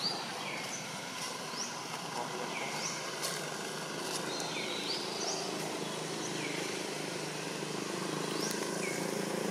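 Outdoor ambience: short, high, rising chirps repeating at irregular intervals, over a steady low engine hum that grows louder near the end.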